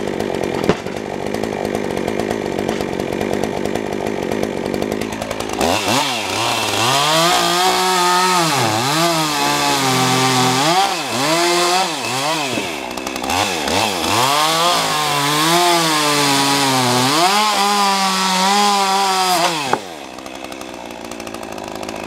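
Stihl two-stroke chainsaw idling, then revved up about six seconds in and cutting through a heavy slab. Its pitch sags and recovers several times as the chain bites under load. It drops back to idle near the end.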